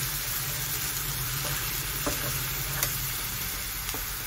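Ginger-garlic paste sizzling steadily in hot oil, being fried to cook off its raw smell, while a wooden spatula stirs it and taps the pan a few times.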